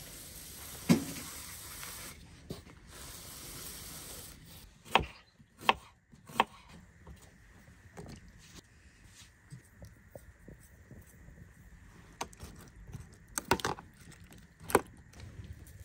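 Food being prepared on a wooden cutting board: about half a dozen sharp, separate knocks, the loudest about a second in and near the end, with quiet handling and rubbing between them.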